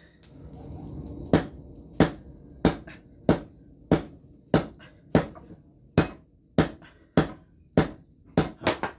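Hammer blows on red-hot hydraulic-breaker chisel steel held in tongs on a small anvil: about fourteen sharp, ringing strikes at a steady pace of roughly one every 0.6 s, with the last few coming quicker near the end. The steel is very hard and barely moves under the hammer even while still red.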